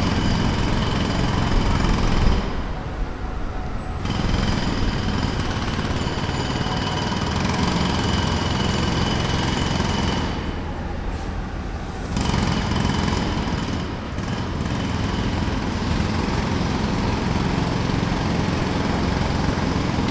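Jackhammer hammering continuously, stopping twice for about two seconds before starting up again.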